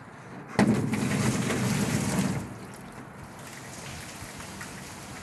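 A bucket of water tipped onto a porch canopy roof: a sudden splash and rush of water starting about half a second in, lasting about two seconds, then fading to a faint trickle. The water shoots right over the gutter instead of running into it.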